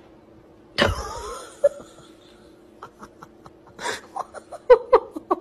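A person laughing: a sudden loud outburst about a second in, then quick, breathy bursts of laughter that grow louder toward the end.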